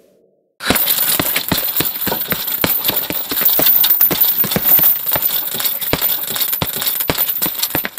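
Rapid, irregular clicking and rattling that starts suddenly about half a second in and keeps up at a dense, uneven pace.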